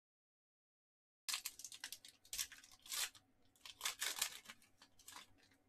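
Foil wrapper of a Panini Prizm basketball pack being torn open by hand, crinkling and tearing in a quick run of sharp bursts that start about a second in.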